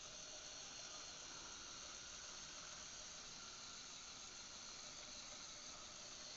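Faint, steady whirring hiss of a Lego drop-tower model running, its electric motors carrying the ring gondola up the tower.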